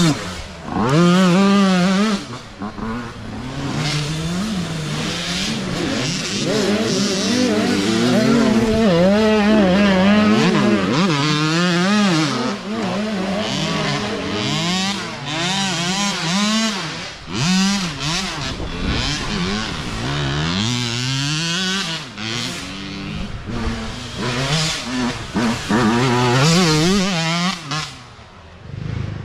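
Youth dirt bike engines revving hard as riders pass one after another, the pitch repeatedly climbing and falling with throttle and gear changes. It dips quieter briefly near the end.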